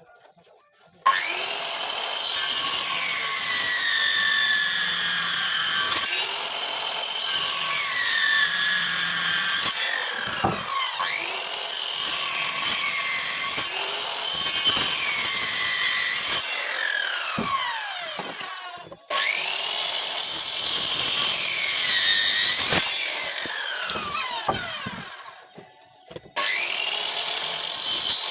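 Electric power tool cutting wood, its motor pitch dipping and recovering again and again as it comes under load. It starts about a second in and breaks off briefly twice in the later part.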